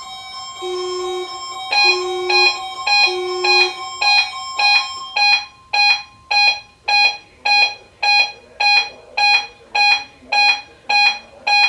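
NOAA weather alert radios receiving the steady 1050 Hz warning alarm tone of the weekly test, with the radios' own alarm beeping over it from about two seconds in at roughly two beeps a second. The steady tone cuts off near the end.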